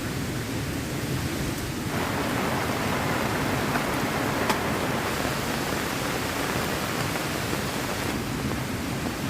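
Heavy rain falling, a steady rushing hiss. It turns brighter and louder abruptly about two seconds in and drops back just as abruptly near the end, with one small tick midway.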